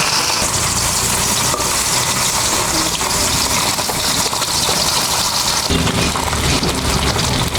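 Small morola fish frying in hot oil, a steady sizzling hiss with small crackles. A low hum joins about six seconds in.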